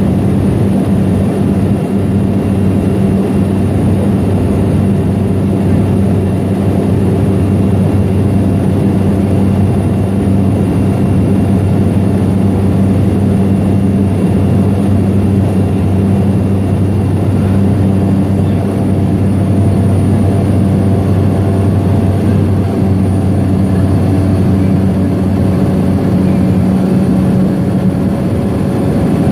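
Floatplane's piston or turbine engine and propeller running steadily in level flight, heard from inside the cabin as a loud, even drone with a constant low hum.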